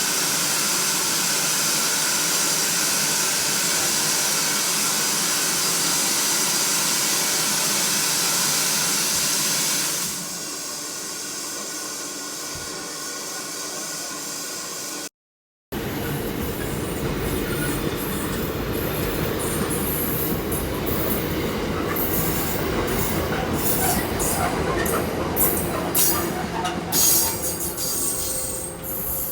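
Train running on rails: a steady rushing noise that drops in level about ten seconds in. After a short break, a train rumbles with its wheels squealing, the high squeals coming more and more often near the end.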